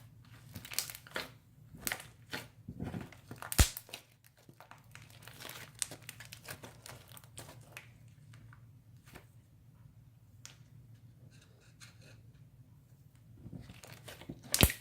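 Thick crunchy slime made of glue and Arm & Hammer with cut straw pieces in it, crackling and popping as it is swirled by hand. A dense run of crackles fills the first four seconds with one sharp loud pop. Only faint sounds follow, until a few more crackles near the end.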